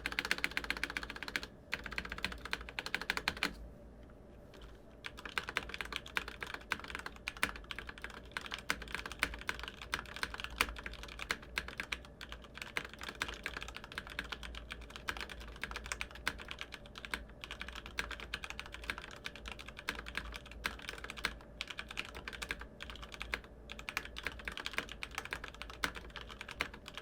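Fast typing on a Mountain Everest Max mechanical keyboard with stock, unlubricated Cherry MX Red linear switches: a dense stream of key clacks, with a short pause about four seconds in.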